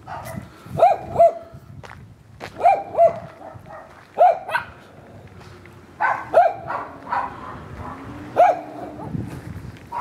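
A dog barking repeatedly: short, sharp barks, mostly in quick pairs, every second and a half or so.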